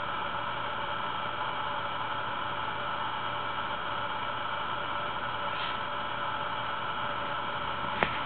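Steady background hiss with a faint constant hum, and a single sharp click near the end.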